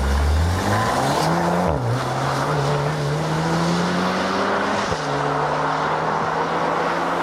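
Volkswagen Tiguan R's 2.0-litre turbocharged four-cylinder petrol engine accelerating, the revs climbing and then dropping at two upshifts, about a second and a half in and again about five seconds in.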